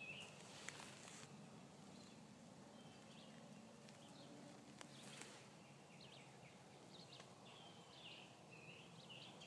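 Near silence in woodland: faint outdoor ambience with a few soft, short bird chirps and a couple of light clicks from handling.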